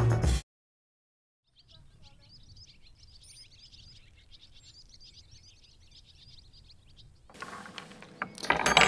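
Small birds chirping in a busy, continuous twitter, with a faint low wind rumble underneath.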